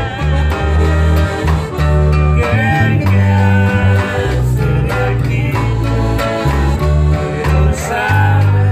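Piano accordion and acoustic guitar playing a song together, with men's voices singing over them. Low bass notes on the guitar change every half second or so.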